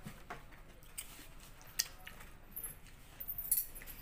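People eating chicken curry and rice with their hands: chewing and wet mouth sounds, with scattered clicks and smacks, a sharp one near the middle and a small cluster near the end.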